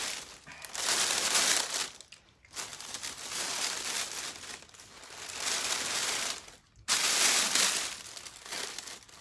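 Clear plastic shrink-wrap film crinkling as it is handled and pulled over a basket, in several stretches broken by short pauses about two seconds in and just before seven seconds.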